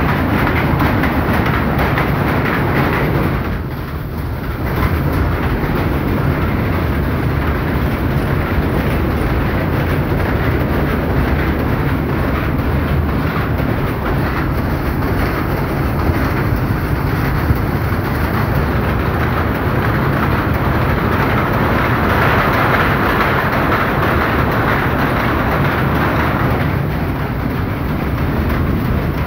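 Powerlooms weaving sarees, running together in a steady, dense mechanical clatter. The din dips briefly about four seconds in.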